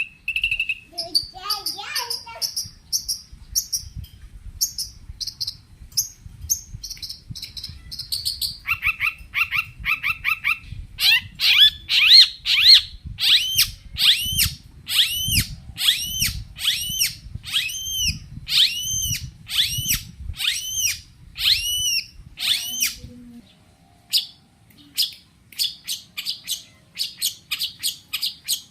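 Long-tailed shrike (cendet) singing a rapid, varied song: series of high repeated chirps that switch to a new phrase every few seconds, with a loud run of evenly spaced arched whistled notes, about one and a half a second, in the middle.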